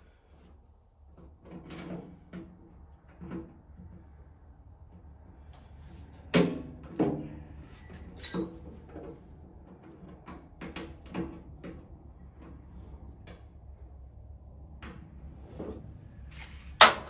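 Irregular knocks, clanks and metallic clinks of tools and metal parts being handled during work under a truck. The loudest clanks come about six and seven seconds in and just before the end, with a ringing clink about eight seconds in.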